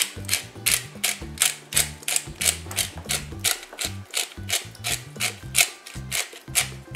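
A utensil stirring a liquid mixture in a plastic mixing bowl, knocking and scraping against the bowl in a steady rhythm of about three strokes a second.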